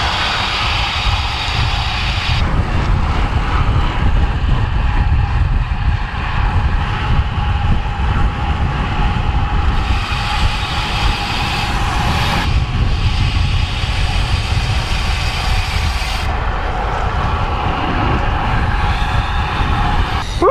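Heavy wind rushing over an action camera's microphone on a road bike riding fast downhill. The noise is steady and low-heavy, shifting abruptly three times where clips are joined.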